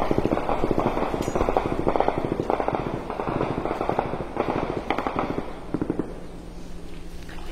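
Automatic rifle fire in a series of rapid bursts of sharp cracks, dying away about six seconds in.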